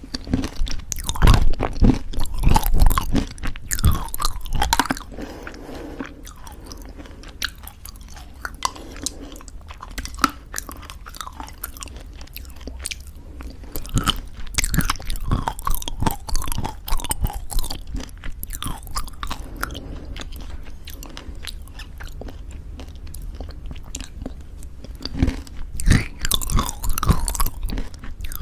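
Close-miked chewing of granola in thick yogurt: crunchy bites and crackling chews, with the loudest bursts of crunching about a second in and again near the end, quieter wet chewing in between.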